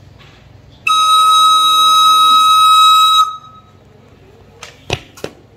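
A long, steady note held for about two and a half seconds on a recorder: the long-sound signal that calls for a jump to a long line. Near the end come two sharp thuds of shoes landing on a tiled floor.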